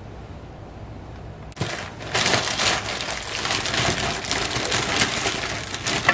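Plastic bag crinkling as broccoli florets are shaken out of it into a saucepan, a dense crackly rustle with small clatters. It starts sharply about a second and a half in.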